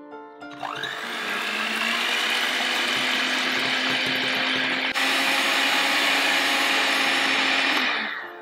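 Electric hand mixer beating egg whites to a stiff foam: the motor spins up with a rising whine about half a second in, then runs steadily, with a brief break about halfway, and winds down just before the end.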